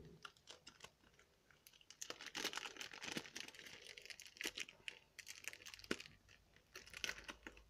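Faint crinkling and tearing of the wrapping on a bundle of trading cards being opened by hand, in scattered short rustles that start about two seconds in.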